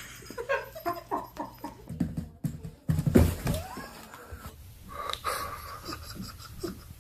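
A dog making a run of short, repeated vocal sounds, with panting.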